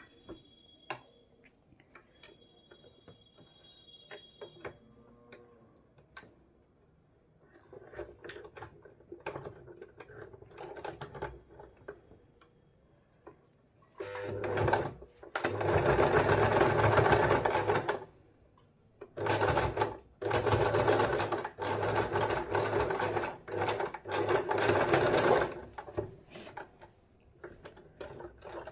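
Usha electric sewing machine stitching the second line of a French seam along a shirt's shoulder, in two runs of a few seconds each with a short stop between, starting about halfway in. Before that, soft clicks and rustles as the fabric is handled and set under the needle.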